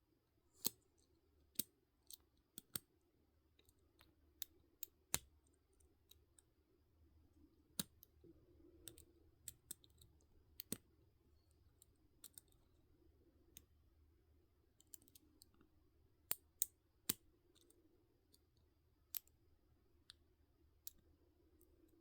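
Lock pick and tension wrench working the tiny pins of a pin-tumbler lock: sharp, irregular metallic clicks, a few a second at most, over a faint steady hum.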